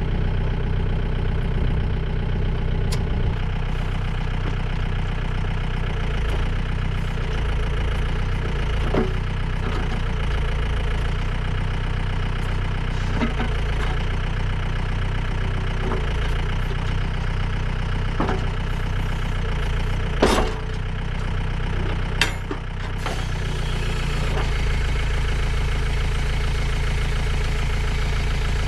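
Tractor engine running steadily while a John Deere 485 backhoe is worked into place on it, with a handful of short sharp knocks, the loudest about two-thirds of the way through and another a couple of seconds later.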